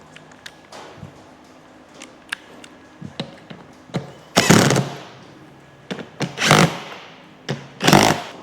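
Power driver running in short bursts, three in all, as the small screws of a transmission outside cover are driven in, after a few light clicks of the screws and tool being handled.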